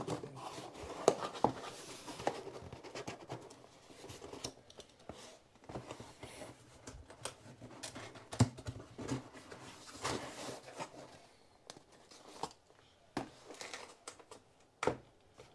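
Cardboard box being closed and handled on a tabletop: flaps and lid rubbing shut, with the box sliding and set down in scattered taps and knocks, the sharpest about a second in and again about eight seconds in.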